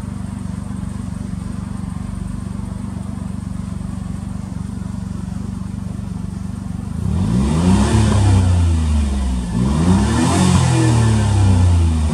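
Suzuki Cappuccino's K6A turbocharged three-cylinder engine, fitted with an aftermarket muffler, idling steadily at about 1,000 rpm while stationary. About seven seconds in it is revved, its pitch rising and falling twice and climbing again at the end, to over 3,000 rpm.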